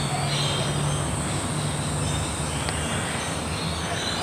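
Steady low mechanical drone, like a distant train or heavy vehicle passing, under a constant high-pitched insect buzz and a few faint bird chirps.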